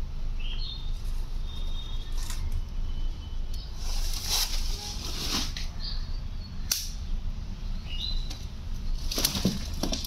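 Rustling and handling noises with several sharp clicks over a steady low hum, plus a few short, high, rising chirps.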